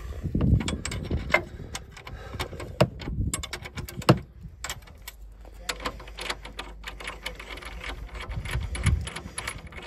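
Scattered light metallic clinks and clicks of hand tools and a steel drift being handled against a rusty suspension bolt, with a few sharper knocks, the loudest about four seconds in.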